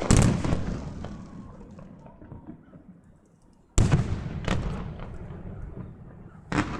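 Aerial fireworks bursting: a loud bang at the start, two more about four seconds in, and another near the end, each followed by a rumbling echo that slowly fades.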